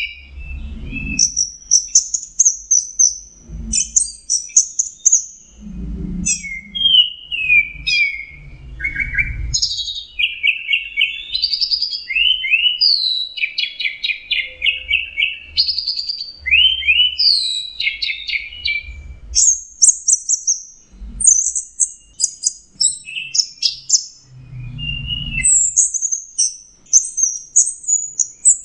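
Orange-headed thrush (anis merah) singing continuously: a fast, varied string of high whistled and trilled phrases, with dull low thumps every few seconds underneath.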